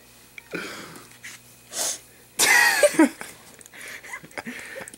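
Golden retriever on its back making breathy huffs, then a louder whining, groaning vocalization about two and a half seconds in whose pitch slides downward.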